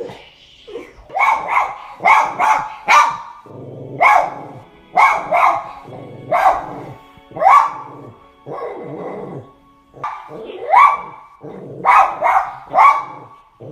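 Dog barking over and over in quick, sharp runs of two or three barks, with a lull of a couple of seconds past the middle before a last flurry. Film soundtrack music plays underneath.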